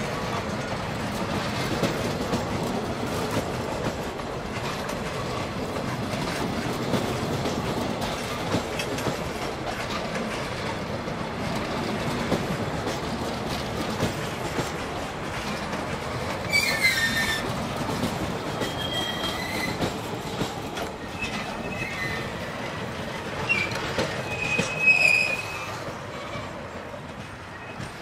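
Rovos Rail passenger coaches rolling slowly past, their steel wheels clicking over rail joints. From about halfway through, the wheels give short high-pitched squeals, and the loudest squeal comes near the end.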